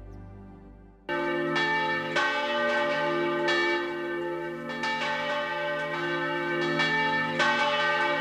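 Church bells ringing, starting suddenly about a second in. Repeated strikes come at uneven intervals and their tones overlap and ring on.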